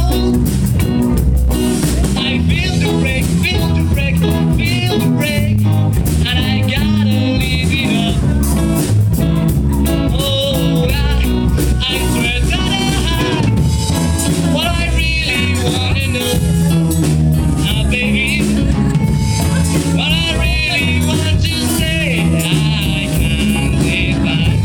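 Rock band music with a singer, drum kit and guitar, playing steadily throughout.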